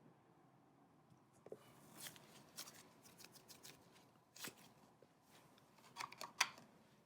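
Thick cloud cream slime being pressed and stretched by hand, giving faint sticky clicks and crackles, with a cluster of louder pops near the end.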